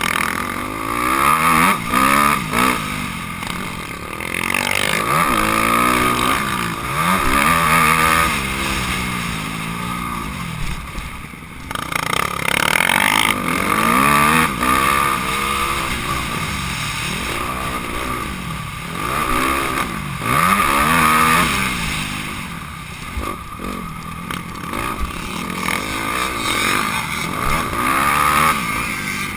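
Honda CRF250R's single-cylinder four-stroke engine racing, revving up and dropping back again and again as the rider accelerates out of turns and shifts through the gears, with a brief lull about twelve seconds in.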